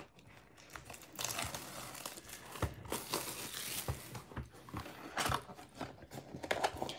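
Plastic shrink-wrap being torn and crinkled off a sealed trading card box, densest from about a second in to the middle, followed by softer rustling and taps of cardboard as the box is opened.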